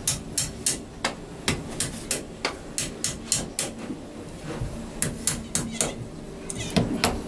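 Repeated sharp metal strikes, about two or three a second with a short pause midway, as a tool is hammered against the cylinder block of a KIA L6 engine.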